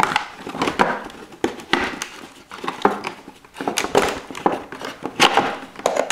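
Hands handling plastic and cardboard packaging: irregular crinkling and rustling with small clicks and knocks.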